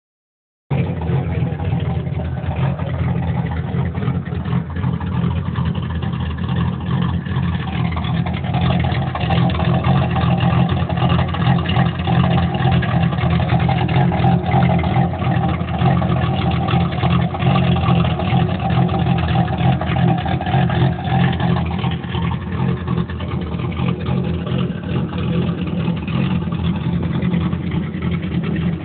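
Turbocharged V6 Ford Mustang idling through a 3-inch exhaust: a steady, low exhaust note.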